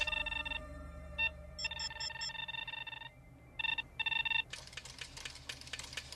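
Sci-fi computer sound effects of a photo-enhancement machine, with no voice over them. Short bursts of electronic beeping tones, some with high chirps, come over a low steady hum. About four and a half seconds in they give way to roughly two seconds of rapid clicking, as the machine responds to a zoom command.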